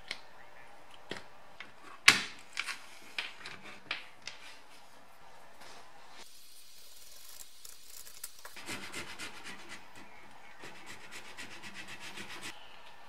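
Hard plastic vent flaps from a BMW E30 heater unit handled on a workbench: a few sharp clicks and taps in the first seconds, then a long stretch of quick rubbing and scraping.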